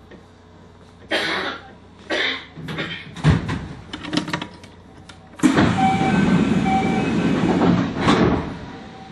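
A stopped train's driver's-cab curtain being handled right by the microphone: a series of short rustles and knocks, then about three seconds of louder rustling noise that dies down near the end.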